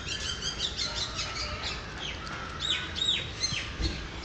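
Small birds chirping: a quick run of short, high chirps, with a few arched, falling calls about three seconds in.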